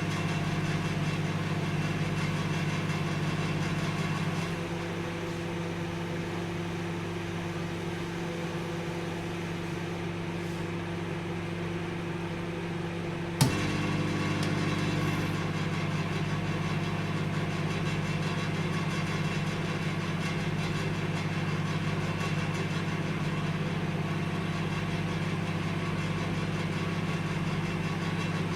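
Microwave oven running with a steady hum. About four seconds in the hum drops slightly and changes tone. About thirteen seconds in a single sharp click brings the fuller hum back.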